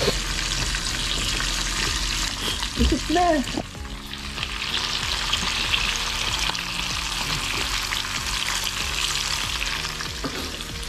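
A whole squid frying in hot oil in a pan, giving a steady sizzle that dips briefly about four seconds in. About three seconds in comes a short, louder knock with a brief squeak.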